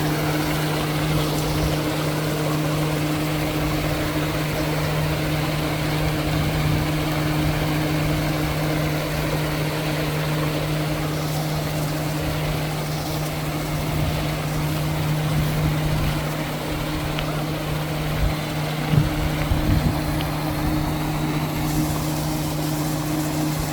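A machine running steadily with a constant low hum and a noisy rumble, with a few short knocks a little before two-thirds of the way through.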